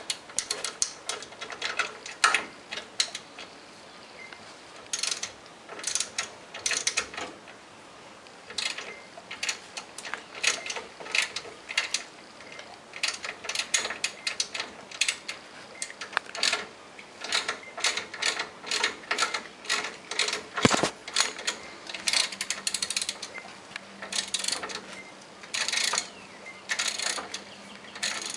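3/8-inch drive ratchet with a hex bit socket clicking in quick runs of strokes, pausing between runs, as a brake caliper bolt is backed out.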